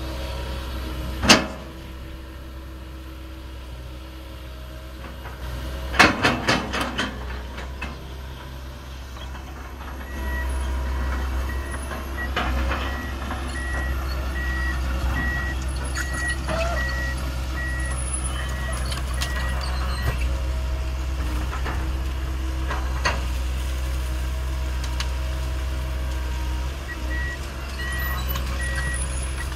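Komatsu PC200 crawler excavator's diesel engine running, with a sharp knock about a second in and a quick run of knocks around six seconds in. About ten seconds in the engine comes up louder and the travel alarm beeps steadily as the machine tracks, stopping around twenty seconds and beeping again near the end.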